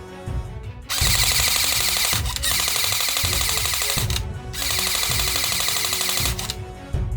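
Toy or airsoft gun firing on full auto in long rapid-fire bursts, starting about a second in and again after a short pause, with background music underneath.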